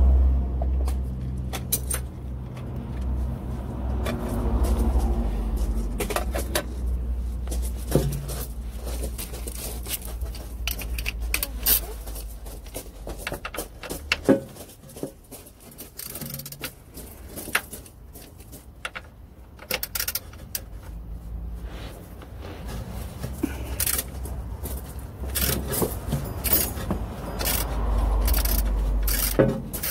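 Metal clinks and knocks of a ratchet and 17 mm hex socket being handled and fitted into a plug on a van's manual gearbox casing, over a low rumble that dies away about halfway and returns near the end.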